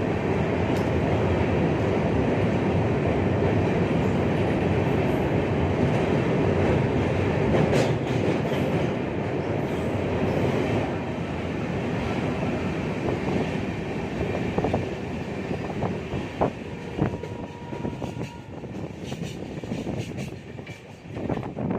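Train running on the rails, a steady rumble with wheel clatter that eases off during the second half, where scattered clicks stand out.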